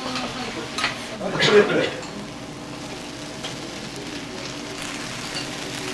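Food sizzling on a steel teppan griddle, a steady frying hiss, with a brief loud voice in the first two seconds.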